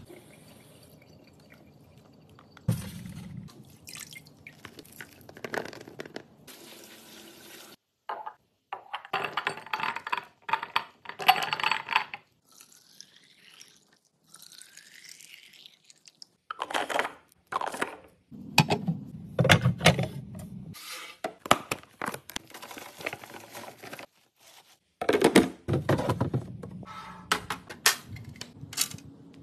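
Kitchen produce-prep sounds: water running and splashing from a tap, a container filling with a rising pitch, and clicks and knocks of containers being handled.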